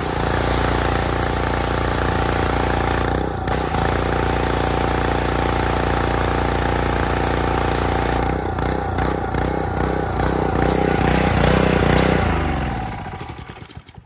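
Gas-engine pressure washer running steadily under load, its freshly replaced pump driving a hissing spray of water. The engine note dips briefly a few seconds in and wavers later on. Near the end the engine is shut off and spins down to a stop.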